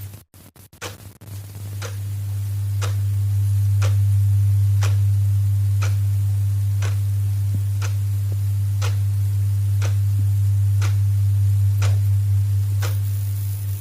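Clock ticking off the seconds, one sharp tick about every second, over a loud steady low hum. The sound cuts out briefly a few times about a second in.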